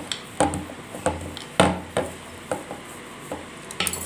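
Rolling pin knocking and thudding irregularly against the rolling surface as hot peanut chikki mixture is rolled out quickly and thinly, with a few quick clicks near the end.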